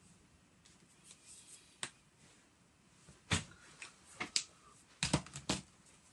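Plastic marker pens being handled: a handful of sharp clicks as caps are pulled off and pushed on and pens knock together, mostly in the second half.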